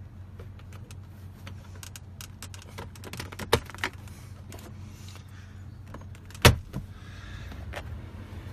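Clicks and knocks from handling the rear-seat fold-down armrest of a 2012 Toyota Sequoia: small clicks, a sharper pair about three and a half seconds in, and a louder knock about six and a half seconds in, over a steady low hum.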